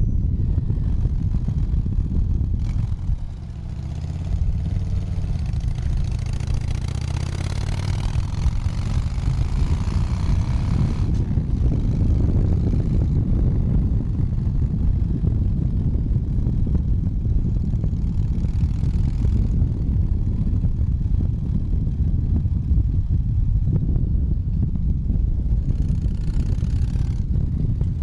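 Harley-Davidson motorcycle's V-twin engine running. It drops briefly about three seconds in, then revs up and holds high until about eleven seconds, then settles back to steady running.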